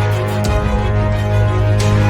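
Background music: sustained chords with a deep bass note and occasional percussive hits.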